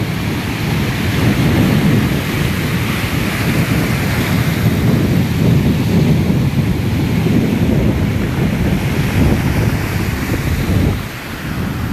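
Storm surf rushing and breaking on the shore, with wind buffeting the microphone, easing briefly near the end.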